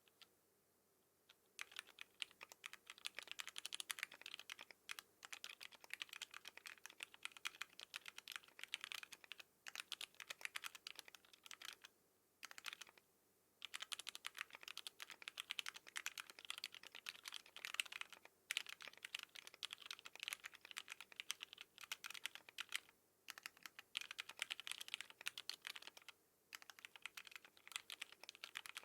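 Steady, fast typing on a custom mechanical keyboard: an ai03 Equinox case with housing-lubed Alpaca linear switches and GMK Metropolis keycaps. The keystrokes come in dense runs, starting about a second and a half in, with a few short pauses.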